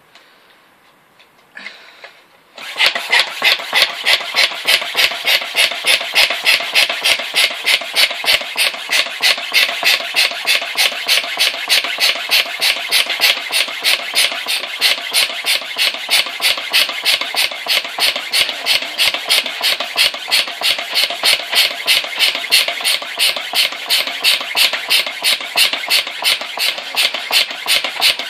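Hand balloon pump worked quickly to inflate a latex punch balloon, a fast, even run of air puffs at about three to four strokes a second, starting about two and a half seconds in.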